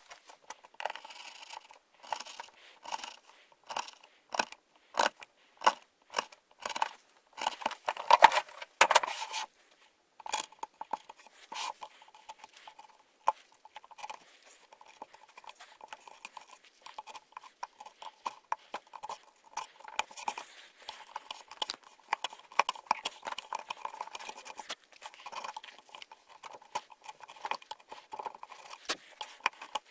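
Hand chisel paring and shaving wood: a quick, irregular series of short cutting and scraping strokes, with a burst of harder cuts in the first third.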